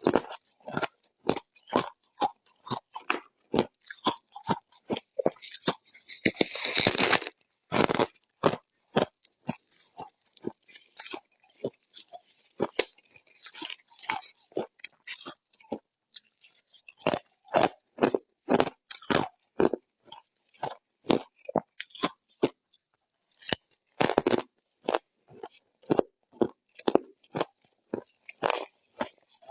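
Close-up crunching and chewing of ice, a rapid, irregular run of sharp bites and crunches. About six seconds in comes a longer rasping stretch of a second or so.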